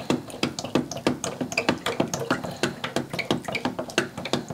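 A stirrer rapidly knocking and clicking against the sides of a plastic pitcher, several strikes a second, as water is stirred to dissolve Epsom salt into a hydroponic nutrient mix.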